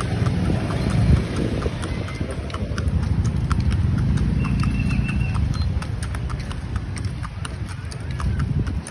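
White pony's hooves clip-clopping on asphalt at a walk, about three or four sharp clops a second, over a low steady rumble.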